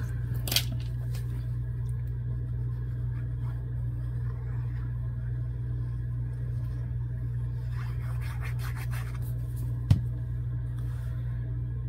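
Faint rustling and handling of a paper scrap and a plastic bottle of liquid glue over a steady low hum, with one sharp click about ten seconds in.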